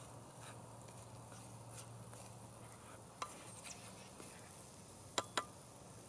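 Scrambled eggs and green peppers frying faintly in a skillet over campfire coals as they are stirred, with a few light clicks, two close together near the end.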